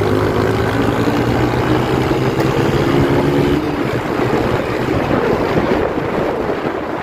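Honda CG Start motorcycle's single-cylinder engine pulling hard under acceleration through an aftermarket exhaust, with wind buffeting the helmet-mounted camera. The steady, slowly rising engine note gives way to a rougher sound about halfway through.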